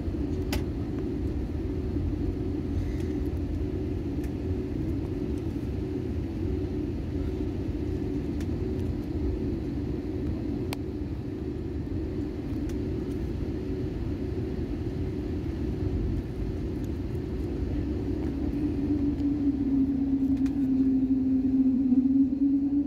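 Airliner cabin noise while taxiing: the jet engines' steady low rumble and hum, with a droning tone that grows louder near the end.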